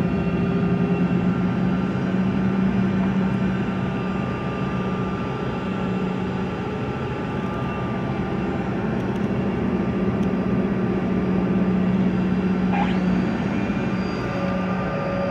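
Airliner engines running steadily, heard from inside the passenger cabin as a constant hum with several steady tones. About thirteen seconds in, a short rising sound is followed by a new steady high tone.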